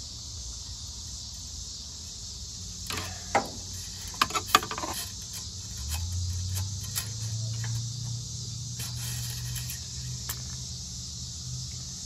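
Metal oil dipstick being fed back into its tube on the engine, with a few sharp clicks and taps about three to four and a half seconds in, over a steady high hiss. A low hum comes up from about six seconds in.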